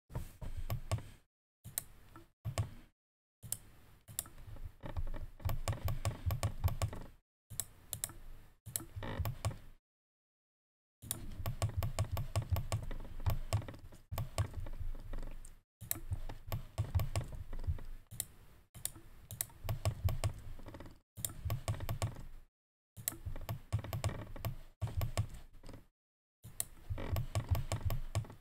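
Quick runs of clicks and taps from a computer mouse and keyboard being worked at a desk, broken by short stretches of dead silence.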